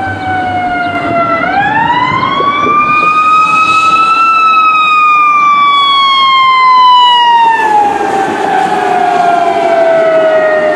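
Fire engine siren on a slow wail. Its pitch dips, climbs for about three seconds, then glides slowly down for about six seconds.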